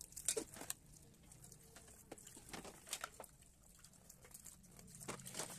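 Dishwashing in a stainless-steel sink: scattered light clinks and knocks of a pot, a glass lid and plastic plates being handled and set down, over faint running tap water.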